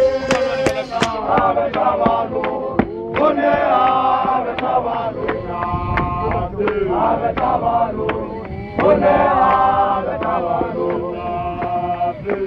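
A male ZCC Mokhukhu group chanting a hymn together in held, harmonised notes, with sharp beats keeping time.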